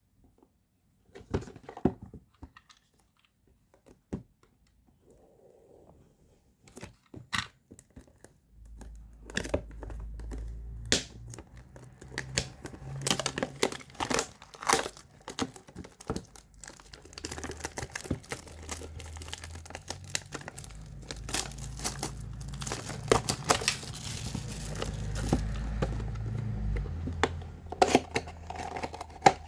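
Cardboard and plastic packaging of a small electronics retail box handled and opened by hand: a few scattered clicks and taps at first, then from about a third of the way in, steady crinkling and tearing with a low rumble of handling underneath.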